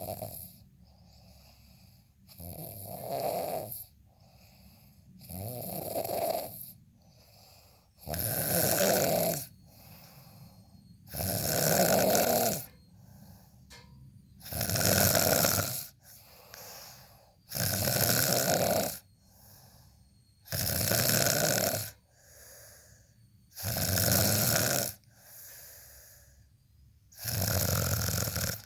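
Loud, regular snoring: a long snore about every three seconds, with a softer breath between each one.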